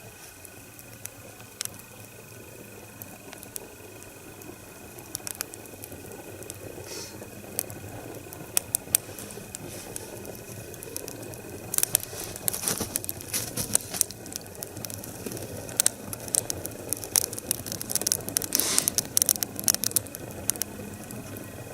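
Wood fire burning up inside a split log stood on end, crackling and popping over a low rushing hiss. The pops grow denser and louder from about halfway through as the fire takes hold along the whole length under a strong draught.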